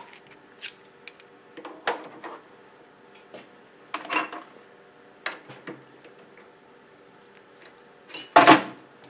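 Scattered metal clicks and clinks as a steel workpiece is handled and set into a metal lathe's chuck with the machine stopped. There is a ringing metallic tap about four seconds in and a louder clatter near the end.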